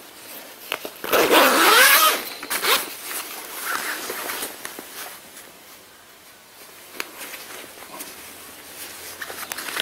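Two-way zipper on a long nylon jacket being worked by hand, with the nylon shell rustling as it is handled. The loudest stretch of zipping and rustling comes about a second in and lasts about a second and a half, followed by quieter scrapes and small ticks.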